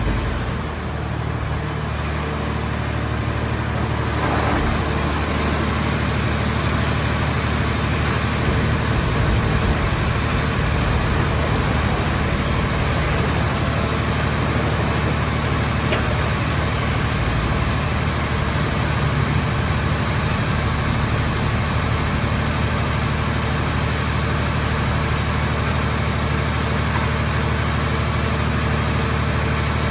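Engine of a scrap car baler's power unit running steadily: a constant low hum with a hiss over it, a little quieter in the first few seconds.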